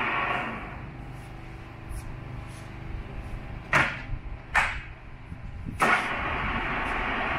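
Cincinnati Bickford drill press: its steady running noise dies away in the first second. Then come three loud metal clunks as levers on the head are worked, about two seconds apart, and the running noise starts again with the last clunk.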